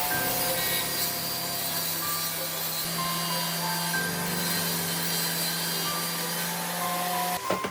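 A power tool cutting or sanding: a steady, loud rasping noise that cuts off suddenly near the end, with background music underneath.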